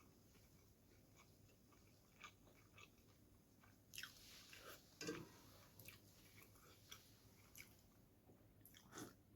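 Quiet close-up eating sounds of someone chewing spicy chicken noodles: faint wet chewing with scattered short mouth clicks, louder around four, five and nine seconds in.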